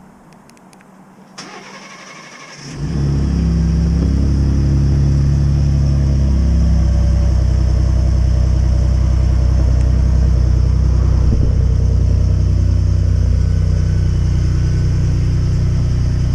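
2018 Ford F-150 Raptor's twin-turbo 3.5-litre V6 on a cold start: a short crank about a second and a half in, the engine catches just under three seconds in, then runs at a steady idle with its rumble.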